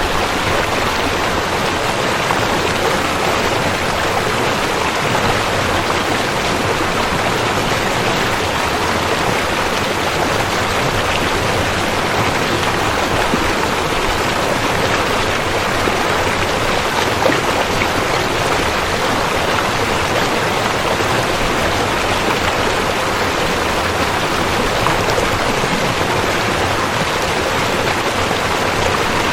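River water flowing, a steady, even rush of water.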